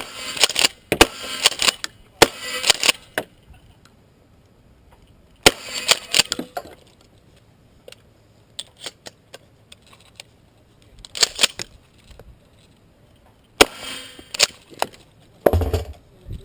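Gunshots fired singly during a 3-Gun stage: three about a second apart at the start, then single shots a few seconds apart. Fainter clicks and handling noise fill the gaps between shots.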